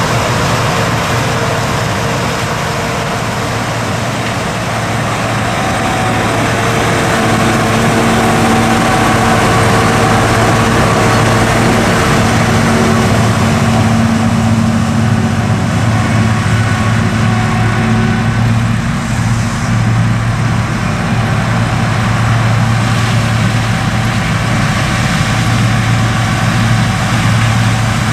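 Combine harvester's diesel engine running steadily at work in a corn field, a loud even hum with a few steady tones over it.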